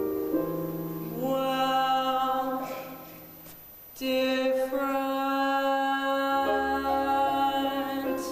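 A singer holding the long closing notes of a musical-theatre ballad with vibrato, over sustained accompaniment chords. There is a brief pause about three seconds in, and a low bass note enters near the end.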